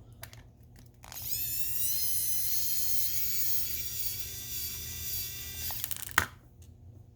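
Small electric screwdriver spinning up with a rising whine and running steadily for about five seconds as it backs out a screw from the toy motor's housing, then stopping; a sharp click follows.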